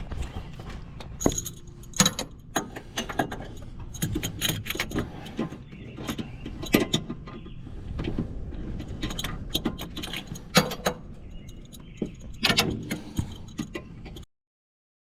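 Metal tools clinking and scraping against the brake sensor fitting while it is being unscrewed, a quick, irregular run of sharp metallic clicks. The sound cuts off abruptly near the end.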